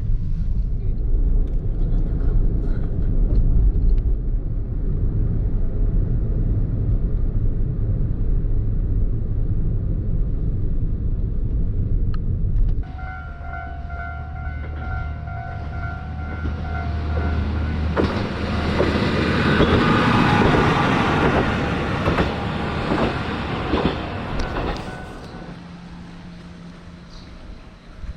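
Train running, heard as a steady low rumble; about 13 seconds in the sound changes abruptly to a quieter run with a steady whine, and a rush of noise swells and fades in the second half.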